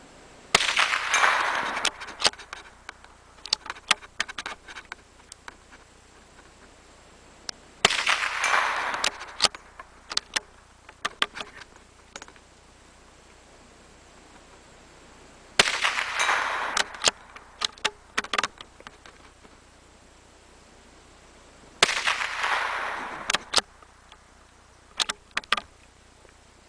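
Four shots from a CZ 452 American bolt-action .22 LR rifle, spaced about seven seconds apart. Each shot is followed by a short run of sharp metallic clicks as the bolt is worked to eject and chamber the next round.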